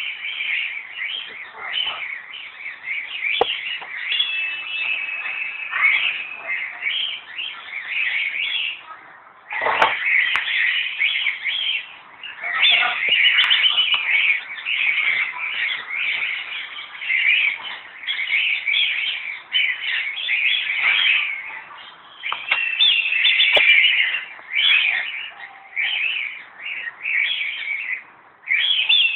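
Many small birds chirping and chattering at once, a dense unbroken chorus of short high calls.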